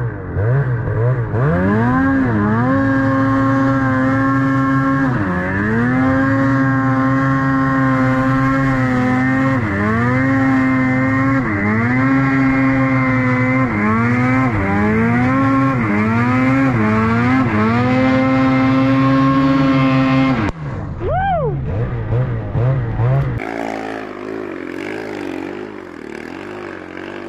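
Ski-Doo snowmobile engine with a GGB aftermarket exhaust, held at a steady high pitch under throttle in deep powder, dipping and climbing back again and again as the throttle is let off and reapplied. About twenty seconds in the sound cuts off sharply, followed by a quick fall and rise in pitch, then a quieter, lower engine sound.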